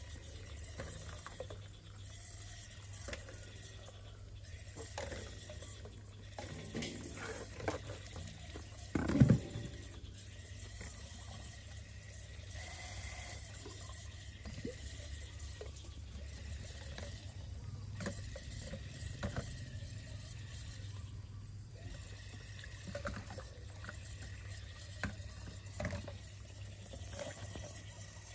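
Water running steadily, as from a tap into a metal basin, with a low steady hum underneath and a few faint clicks. A short, louder pitched sound stands out about nine seconds in.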